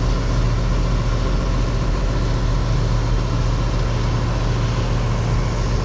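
Tractor engine running steadily under load: a constant low drone with no change in speed.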